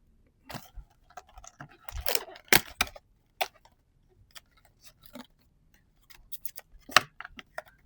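A cardboard trading-card booster box and its plastic wrapping being handled and opened: scattered clicks, taps and crinkles, with sharp clicks about two and a half and seven seconds in.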